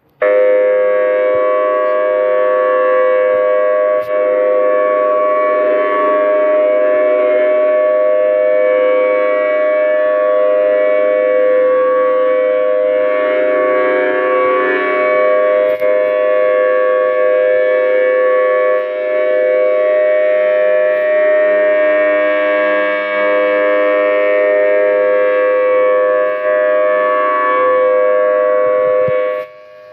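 Outdoor warning siren sounding a loud, steady chord of several tones at constant pitch, without winding up or down. It cuts in abruptly and drops away just before the end.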